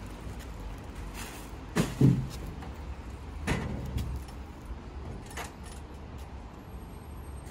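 Metal lid of a lockable street waste-bin enclosure thudding shut about two seconds in, with a second knock soon after. This is followed by smaller clicks and keys jangling as it is locked with a key, over a steady low rumble.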